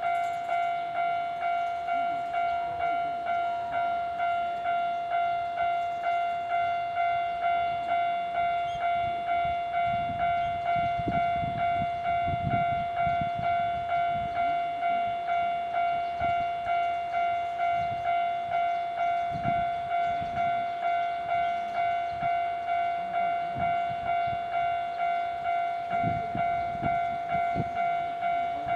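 Japanese railway level-crossing warning bell ringing continuously in rapid, evenly repeated electronic dings, about one and a half a second, while the barriers are down. Low rumbling rises under the bell around the middle and again near the end.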